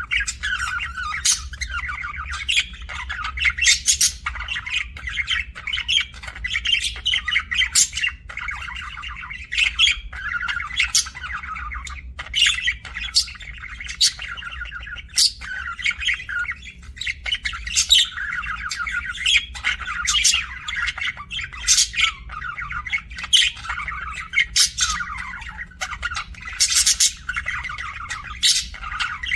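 Budgerigars chattering continuously, with frequent short, sharp, high squawks cutting through the warbling. A low steady hum runs underneath.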